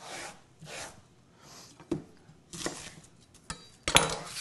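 Dry papery skin being peeled and torn off a red onion by hand, in several short bursts of rustling, with a few light knocks on the wooden countertop, the sharpest about four seconds in.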